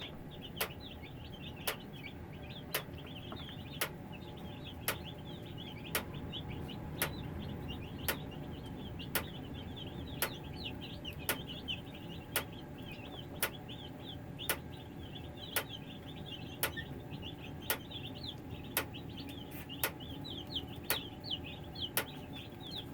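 A brood of baby chicks peeping softly and steadily, the contented sound of comfortable, warm chicks with no loud cries. Under them runs the steady hum of a supplemental space heater, and an electric fence charger clicks sharply about once a second.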